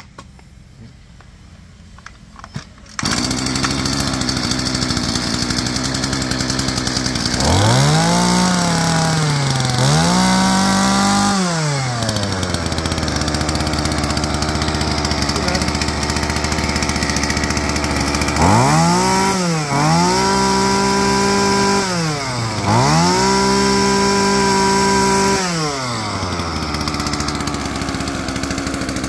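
Husqvarna 325R brush cutter's 25cc two-stroke engine starting about three seconds in and idling, then revved up twice and dropped back to idle, then revved in three bursts, the last one held for a few seconds, before settling back to idle. A test run of the used machine.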